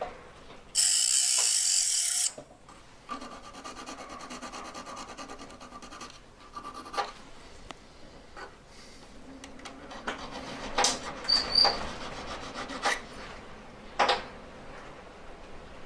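A loud rushing hiss lasting about a second and a half near the start. Then a small knife blade scrapes and clicks against a metal ring shank as it prises open saw cuts, with several sharp metallic clicks in the second half.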